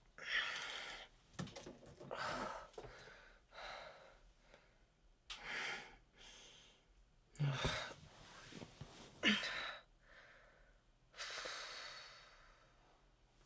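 A woman's quiet, pained breathing: a string of separate heavy breaths and gasps a second or two apart, two of them about halfway through carrying a short low moan.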